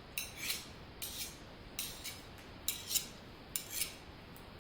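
Metal blade scraping in a series of short, hissy strokes, some in pairs, about eight in all, which stop about four seconds in: a blade being drawn and readied close to the ear, a binaural sound effect.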